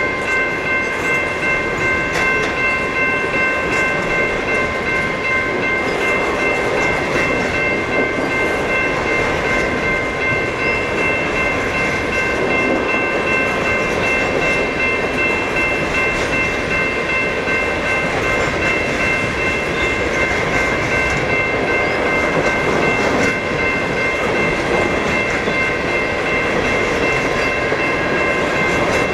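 Freight train of open-top coal hopper cars rolling past: a steady rumble of steel wheels on rail with faint scattered clicks. Over it runs a steady high ringing tone made of several pitches.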